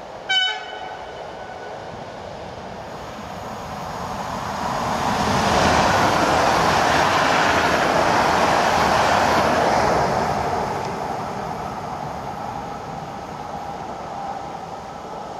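Koleje Śląskie 35WE Impuls electric multiple unit passing on the main line. A short, sharp toot comes about half a second in. Then the rush and rumble of the train's wheels on the rails builds to a peak for about five seconds and slowly fades as it draws away, leaving a faint whine near the end.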